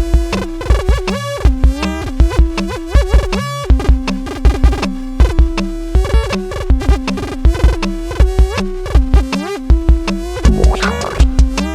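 Electronic music: a steady beat of low drum-machine hits under pitched synthesizer lines with gliding notes, a busier, tangled passage near the end.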